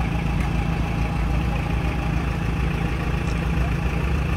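Off-road buggy's engine idling steadily, with no revving.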